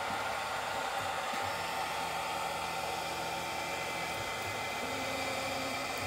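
Longer Ray5 diode laser engraver homing: a steady fan-like whir, with low motor hums that start and stop partway through as the axes run to their limit switches.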